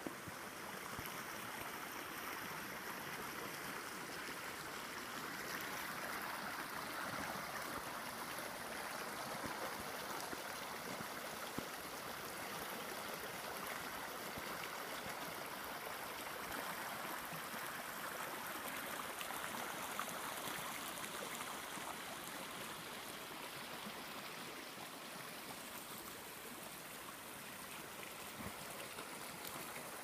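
Small forest stream running over rocks: a steady rushing, gurgling flow, a little louder in the middle and slightly fainter near the end.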